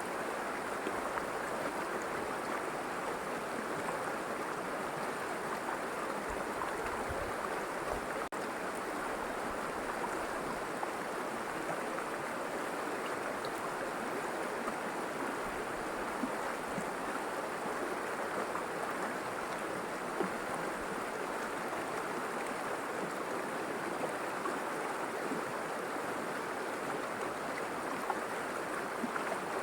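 River water rushing and babbling over stones, a steady even flow.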